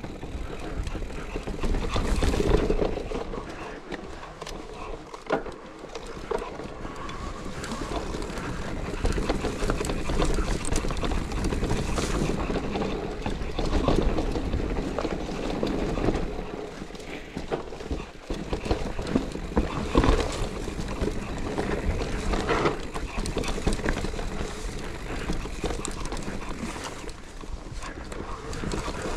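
Enduro mountain bike riding over a rough dirt and stone trail: a steady rush of tyre and trail noise broken by frequent sharp knocks and rattles from the bike.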